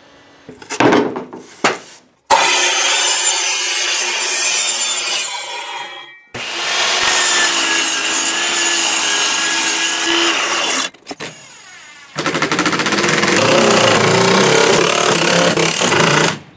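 Power tools working wood in several abruptly cut segments: a saw cutting through a board with a steady whine in the middle, and a power drill working on the wooden shed door near the end. A few short knocks come about a second in.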